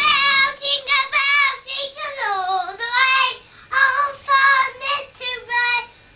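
A small girl singing on her own in a high voice, unaccompanied, in short phrases with brief pauses between them.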